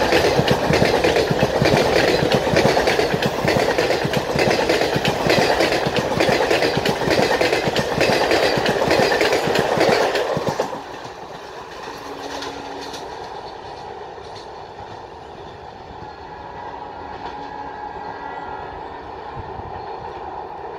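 Express passenger coaches running past at speed, their wheels clattering over the rail joints in a dense, rapid beat. About ten seconds in, the last coach passes and the sound drops suddenly to the fainter, steady rumble of the train running away down the line.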